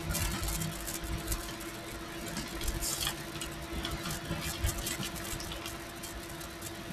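Computer keyboard being typed on: quick, irregular key clicks over a steady electrical hum.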